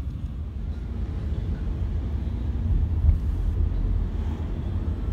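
Steady low rumble of riding in a moving vehicle: road and wind noise, with a slightly louder swell about three seconds in.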